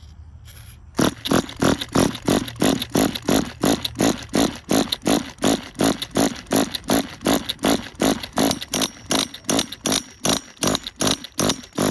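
Small nitro RC car engine being cranked over without firing: a steady, regular pulsing about four times a second that starts about a second in.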